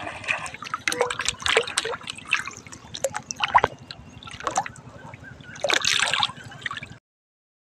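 Shallow muddy water splashing in irregular bursts as a plastic bottle fish trap jerks about with a fish struggling inside it. The sound cuts off suddenly about seven seconds in.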